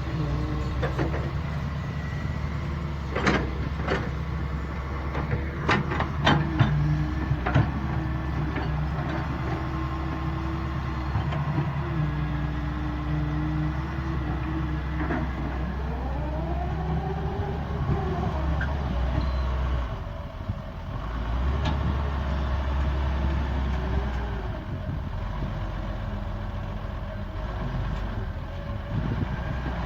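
Doosan excavator's diesel engine running under working load, with sharp knocks several times in the first eight seconds and a pitch that rises and falls between about 16 and 24 seconds.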